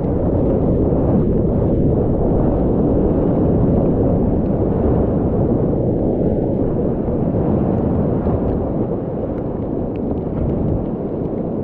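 Steady low roar of breaking surf and churning whitewater around a kayak riding a wave, easing a little near the end.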